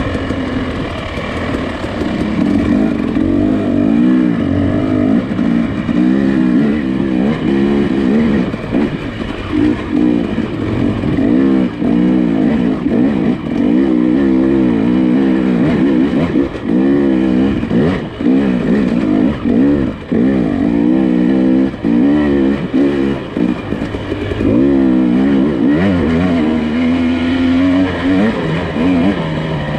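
Nissan Pathfinder SUV engine crawling off-road, its revs rising and falling over and over as the throttle is worked.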